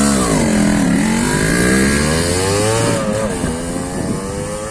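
Yamaha RX 135's single-cylinder two-stroke engine pulling away and accelerating. Its pitch falls at first, then rises, dips briefly about three seconds in and climbs again. It is being revved hard while freshly rebuilt and still in its running-in period.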